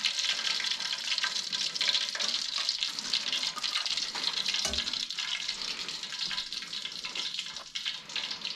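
Hot frying oil in a skillet sizzling and crackling steadily just after a breaded cutlet has come out of it, with a single light knock about four and a half seconds in.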